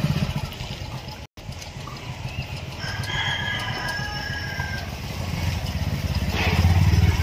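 Motorcycle engine running at low revs, getting louder as it rides past close by near the end. About three seconds in, a high, drawn-out animal call lasts around two seconds.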